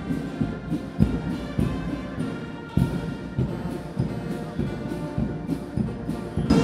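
Military brass band playing a march, held brass chords over a steady bass-drum beat.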